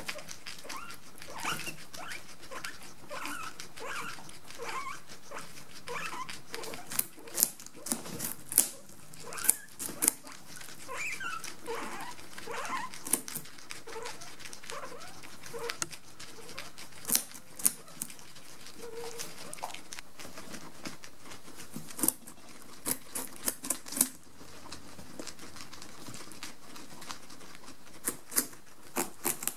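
Several guinea pigs gnawing at the hard rind of a whole pumpkin: a scatter of sharp crunching bites all through. Short squeaking calls come from the guinea pigs, mostly in the first half.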